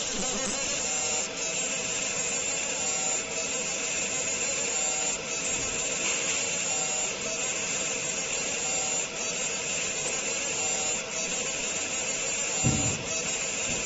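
A 60 W fiber laser marking machine deep-engraving stainless steel: a steady hiss as the beam ablates the metal, with a faint short tone repeating about once a second. A brief low thump near the end.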